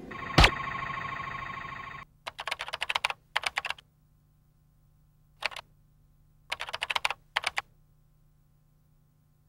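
A sharp click, then a steady electronic buzz for about two seconds. After that comes keyboard typing: runs of quick keystrokes in five bursts with pauses between, a sound effect for text being typed on screen.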